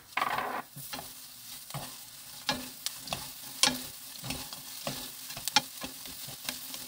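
Wooden spatula stirring crisp fried dried chili peppers and minced garlic in a frying pan, with a steady light sizzle and irregular scraping clicks about every half second. The sizzling is loudest in the first second, just after the garlic goes in.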